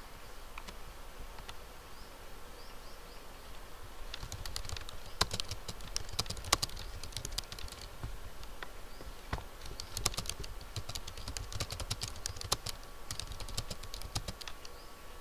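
Typing on a computer keyboard: a quick, uneven run of key clicks starts about four seconds in and goes on, after a couple of single clicks at the start.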